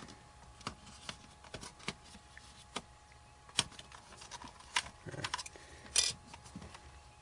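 Scattered small clicks and taps from a laptop being handled and worked on with hand tools, with a few sharper knocks about halfway through and near the end.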